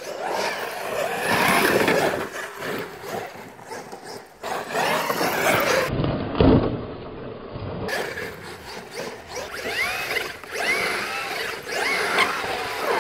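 Traxxas X-Maxx electric RC monster truck running hard, its brushless motor whining and rising and falling in pitch as it speeds up and slows. A heavy thump, the loudest sound, comes about halfway through as the truck rears up on a steep bank.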